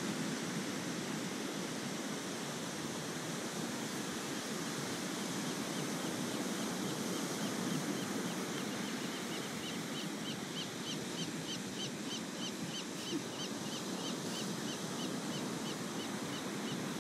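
Ocean surf washing onto a sandy beach, a steady rushing noise. From about halfway in, a short high chirp repeats about three times a second over it.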